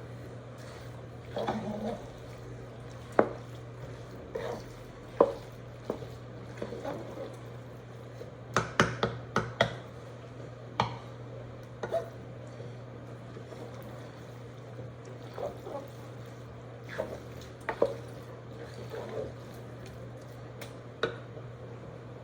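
A spoon stirring cheesy macaroni in a pot: soft wet squelches and scattered knocks of the spoon against the pot, busiest about nine seconds in. A steady low hum runs underneath.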